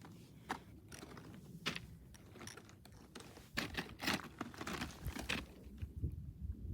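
Footsteps crunching on loose volcanic rock and cinder: irregular sharp crunches and clicks, bunched together about halfway through.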